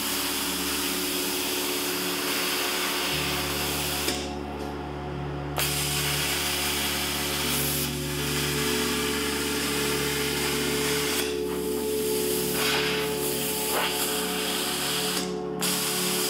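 Plasma cutter running on 220 V at 32 A with 60 PSI air, cutting 14-gauge steel plate: a steady hiss of the air and arc. It stops for about a second and a half about four seconds in, and briefly again near the end.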